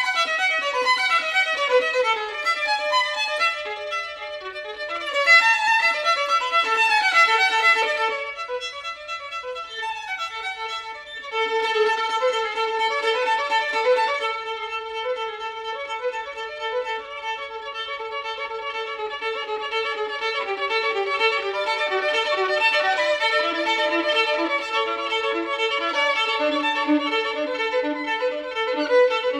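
Instrumental background music: a run of quick melodic notes, a brief quieter lull about eight seconds in, then slower, longer held notes.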